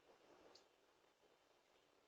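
Near silence: faint background hiss, with one faint click about half a second in.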